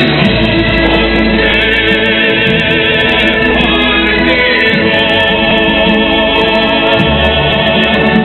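Song with a singing voice holding wavering, vibrato notes over long, deep bass notes: the music the Bellagio fountains dance to.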